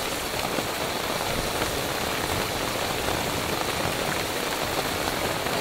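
Heavy rain falling steadily on the fabric of an awning tent room and the ground around it, a constant even hiss of rainfall.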